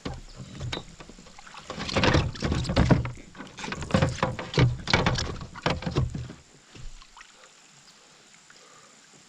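Knocking and rustling from handling in a small fishing boat, in irregular bursts that are loudest from about two to six seconds in, then stop.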